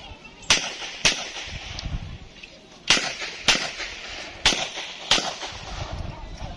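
Six pistol shots fired as three quick pairs, each pair about half a second apart, with short echoing tails off the range.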